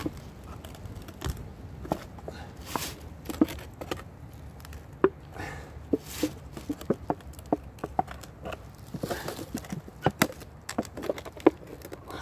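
A gloved hand rubbing and handling a mud-caked box on dry fallen leaves: irregular small clicks, taps, scrapes and leaf crackling.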